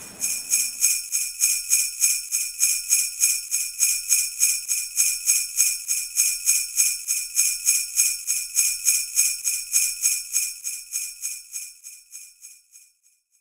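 Sleigh bells shaken in a steady rhythm, about three shakes a second, with a bright metallic jingle; they fade out near the end.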